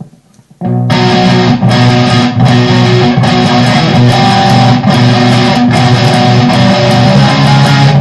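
Electric guitar strummed with a feather in place of a pick. Loud, full chords start about half a second in and are struck again a little more often than once a second, ringing on between strokes.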